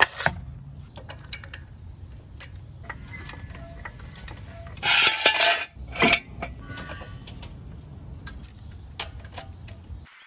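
Tool sounds of jacking up a pickup to take a wheel off. A wooden wheel chock knocks down on concrete at the start. Then come metal clanks and ratcheting clicks from a floor jack and a steel jack stand, loudest in a burst about five seconds in and a knock a second later, and a few clicks near the end as a lug wrench goes onto the wheel nuts.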